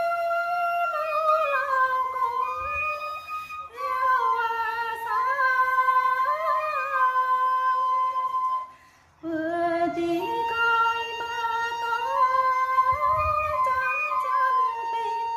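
A woman singing a Tày-Nùng sli folk song in long, drawn-out, ornamented notes, breaking off briefly about four seconds and nine seconds in.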